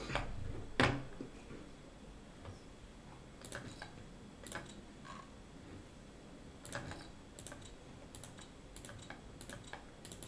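Faint, irregular clicking at a computer, single clicks and short clusters, while chips are clicked onto a bet; a sharper click sounds just under a second in.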